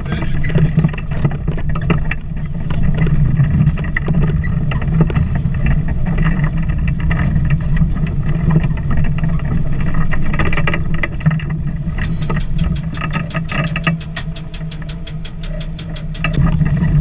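STAR 660 6x6 truck's six-cylinder petrol engine running steadily as the truck drives over rough ground, heard from inside the cab, with the cab and body rattling and knocking over the bumps, most busily in the second half. The engine eases off slightly near the end.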